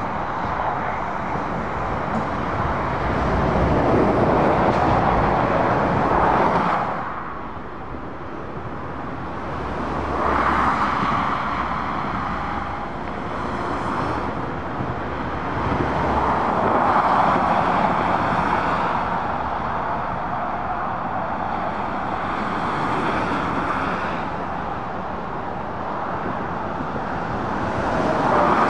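Road traffic on a dual carriageway: cars and lorries passing one after another, tyre and engine noise swelling and fading with each pass. The loudest passes come about four to six seconds in and again near the end.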